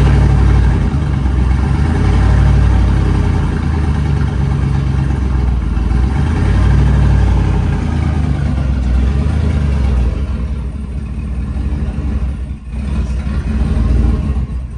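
GMC Sierra's swapped-in 6.2L V8 running loud just after its first start, through stock manifolds and cats with the muffler cut off. Its level swells and eases several times, with a brief dip near the end.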